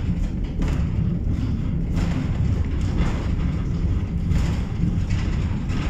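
Funicular tramway car running down its inclined track: a steady low rumble from the car and its wheels on the rails.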